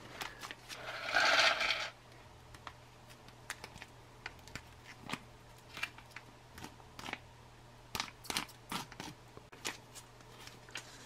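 A foil MRE retort pouch slid out of its brown paper sleeve with a brief scraping rustle near the start. This is followed by many small sharp crinkles and clicks as the foil pouch is torn open and peeled back.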